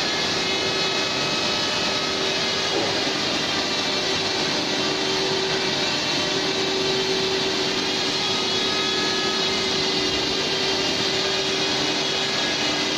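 Hydraulic pump unit of a CNC pipe bending machine running steadily between bends: an even mechanical hum and hiss with a steady tone in it, with no bending strokes or knocks.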